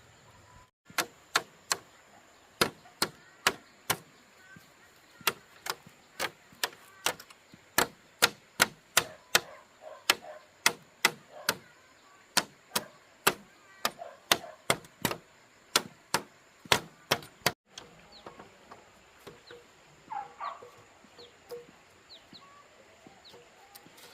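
A long series of sharp knocks, roughly two a second, like repeated striking or chopping, which stops suddenly about seventeen seconds in; faint bird or fowl calls follow near the end.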